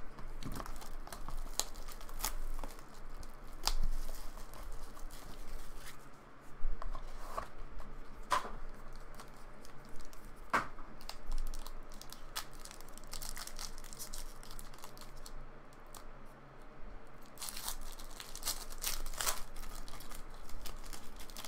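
Gold foil wrapper of a Panini Gold Standard trading-card pack being torn open and crinkled: a run of crackles and rips, thickest near the end.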